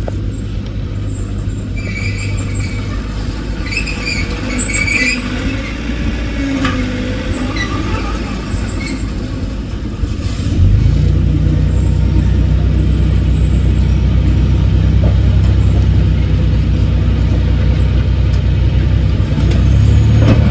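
Heavy earthmoving machine's diesel engine running steadily, with a few high squeaks in the first few seconds. About ten seconds in, the engine revs up and holds at a louder, higher pitch, as under heavy load.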